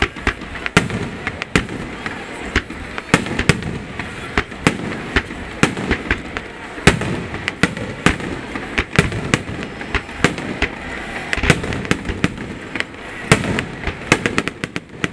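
Fireworks display: aerial shells bursting in quick, uneven succession, sharp bangs several times a second over a continuous rumble.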